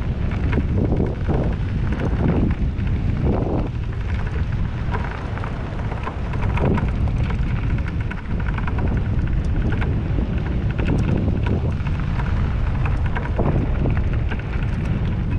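Wind buffeting the microphone on a moving bicycle, a steady heavy rumble, with the tyres crackling and crunching over loose gravel.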